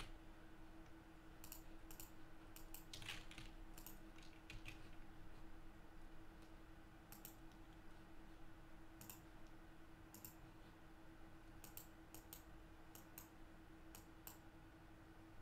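Faint, irregular clicks and taps of a computer keyboard and mouse, scattered throughout, over a low steady hum.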